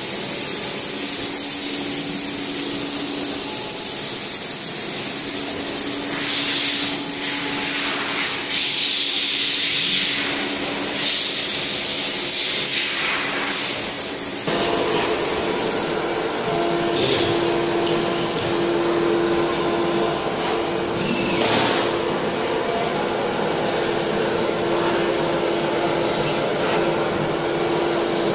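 CNC router spindle running and its bit cutting shallow grooves into a board: a steady high-pitched whine and hiss over a low hum. The sound shifts in character about halfway through.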